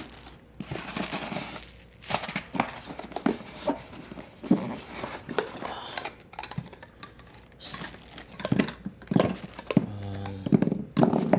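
Plastic packaging crinkling and tearing as meat grinder parts are unwrapped, with scattered clicks and knocks of parts being handled.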